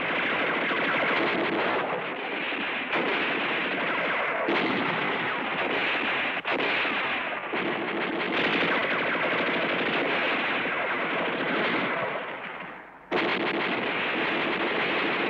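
Sustained machine-gun fire from a German MG42 mixed with rifle shots, firing almost without a break. The firing fades out for a moment near the end, then starts again abruptly.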